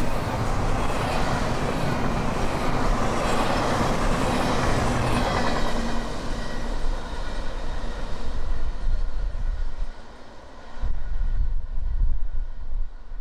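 Double-stack intermodal freight cars rolling past on the rails, their wheels clattering over the track. The sound fades away after about six seconds as the last car goes by. After a brief lull near the end comes a low rumble.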